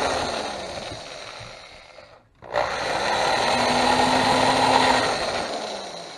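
Benchtop drill press running, its bit grinding into a steel beer bottle cap held on a wooden block. The drilling comes in two runs, broken by a short pause a little over two seconds in; the second run swells louder before fading.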